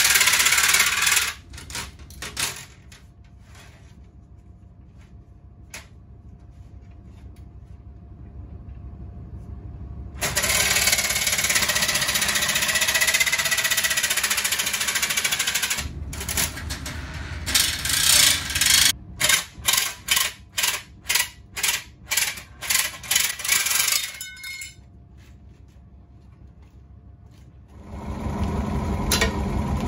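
Jigsaw with a fine metal-cutting blade cutting 2 mm aluminium sheet at a relatively slow speed, in stretches: a cut, a pause of several seconds, another long cut, then about a dozen short bursts on and off. Near the end a Scheppach SD1600F scroll saw's motor starts running steadily.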